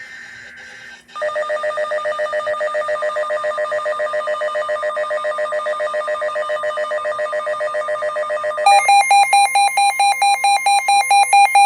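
Electronic emergency alert tone: a rapidly pulsing, ringing warble starts about a second in. Near the end it switches to a louder, higher beeping pattern. It is the alert signal announcing a severe thunderstorm warning.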